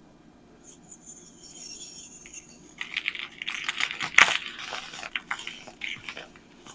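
Packed baking soda being crushed: a faint high squeak at first, then a dense run of crisp crackling crunches about three seconds in, with the loudest snap near the middle, thinning to scattered crunches.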